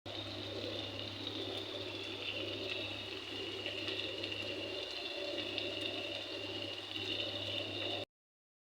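Okra (bhindi) cooking in a pan with a steady sizzle over a low hum, cutting off abruptly near the end.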